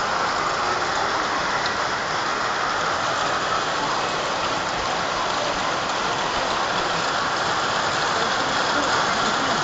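Heavy rain falling steadily on hard surfaces, a dense, even hiss of rain.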